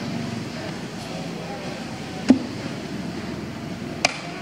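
A heavy curved knife chopping through a giant trevally into a wooden chopping block: a sharp chop about two seconds in and another near the end, with a fainter knock about a second in. A steady background hiss runs underneath.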